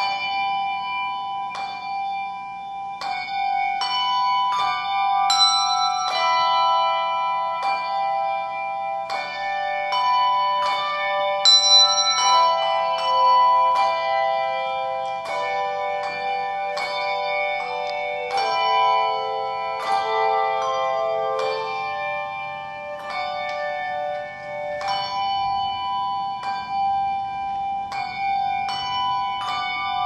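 A handbell choir ringing a slow piece: handbells struck one after another and in chords, each note ringing on and overlapping the next so the harmony sustains and shifts.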